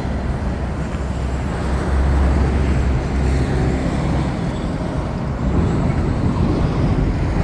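Road traffic noise: a steady rumble of passing vehicles, swelling about two to three seconds in.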